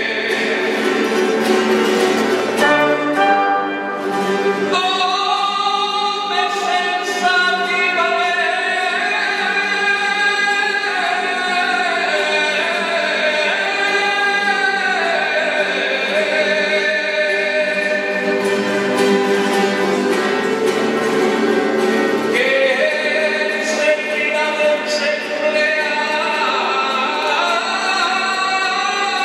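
Cant d'estil, Valencian folk singing: a man sings solo into a microphone in long, ornamented held lines that bend up and down in pitch, with a short break for breath about four seconds in.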